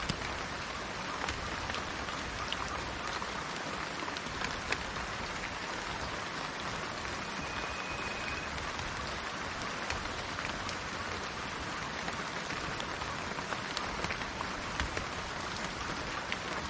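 Steady rain falling, with individual drops ticking sharply on a surface here and there. A short, thin, high whistle-like tone sounds faintly about halfway through.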